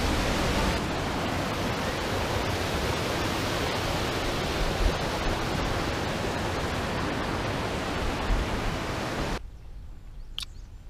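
Rushing water, a steady even noise of a stream or waterfall heard close by. About nine seconds in it cuts off abruptly to quiet outdoor background with one brief chirp.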